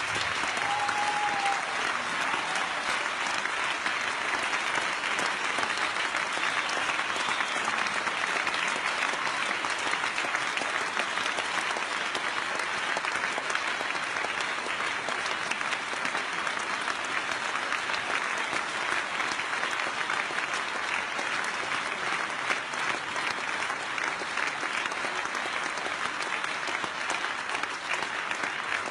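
Audience applauding at length, a dense steady clapping that eases slightly near the end. There is a short high tone about a second in.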